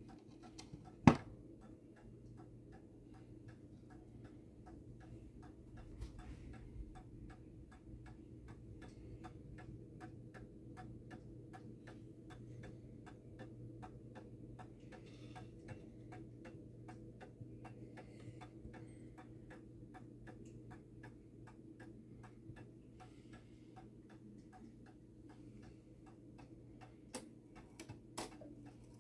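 1920s Hamburg American Clock Company (HAC) tambour mantel clock ticking steadily, its movement running after a shop repair. A single sharp knock comes about a second in, and two or three louder clicks near the end.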